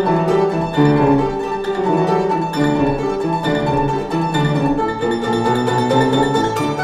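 Two violins with piano accompaniment playing a quick, lively classical rondo in many short notes.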